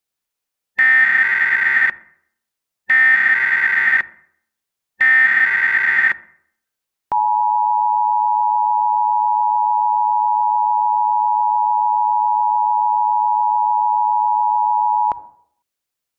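Emergency Alert System tones: three roughly one-second bursts of buzzy SAME header data, then the steady two-tone EAS attention signal held for about eight seconds and cutting off abruptly, the sequence that announces a new alert message.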